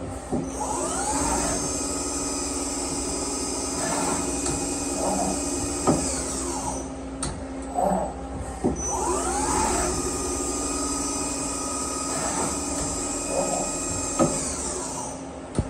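2015 DMC DL21LA CNC lathe running a demo cycle. The spindle and drive whine rises in pitch, holds, then falls, twice over, over a steady machine hum. Sharp clicks near the end of each cycle, about six and fourteen seconds in.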